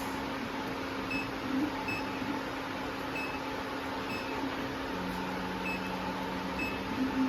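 Steady electrical hum of an automatic label-attaching sewing machine, powered up but not stitching, with faint short beeps about once a second. A lower steady tone sounds for about a second and a half past the middle.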